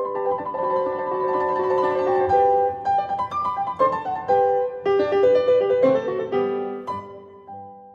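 Background piano music: a melody of sustained notes that dies away near the end.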